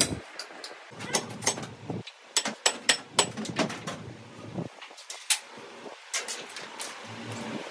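Workshop handling of hydraulic pump parts and tools: a string of irregular sharp clicks and knocks, clustered and several to a second at times, with brief lulls in between.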